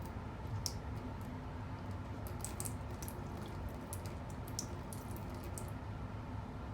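Cat lapping water: a run of soft, quick wet clicks, thickest through the middle, over a low steady hum.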